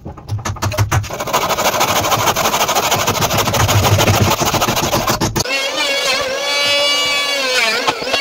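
A saw cutting through a pine board, a loud rapid rasping that stops abruptly about five seconds in. A different sound with several wavering pitched tones follows for the last few seconds.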